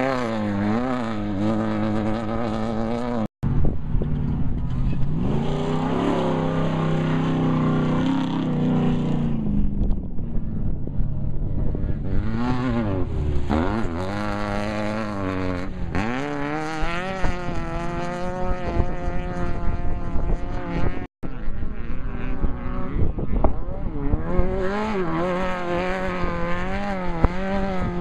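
Off-road race buggy and truck engines revving hard and passing at speed, the pitch rising and falling over and over. The sound cuts out for an instant twice, once a few seconds in and again about three quarters of the way through.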